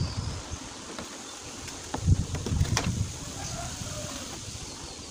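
A plastic spreader scraping and folding car body filler on a wooden tabletop, mixing it with its hardener, with a few short scrapes and ticks. About two seconds in there is a burst of low rumbling.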